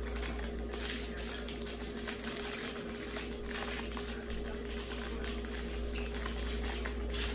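Plastic toy packaging crinkling and rustling in small, irregular handling sounds as an L.O.L. Surprise package is opened, over a steady low electrical hum.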